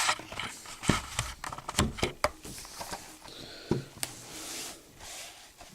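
Handling of a plastic Blu-ray case and its cardboard slipcover: irregular light clicks and knocks with a few short rustles.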